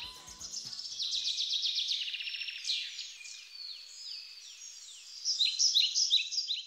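Songbirds singing: a fast trill and quick high chirps, then falling whistled notes, with the loudest burst of chirps near the end. Music fades out in the first second.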